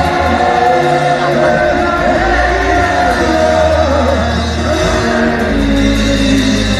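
A crowd of students singing a gospel worship song together, loud and full-voiced, over instrumental backing with a steady bass.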